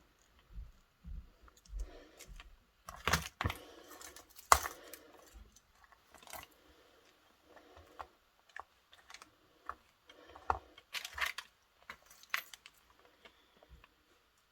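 Small metal keyring parts and pliers clicking and clinking while keyrings are assembled by hand. The clicks are irregular, with the sharpest clinks about three, four and a half and eleven seconds in.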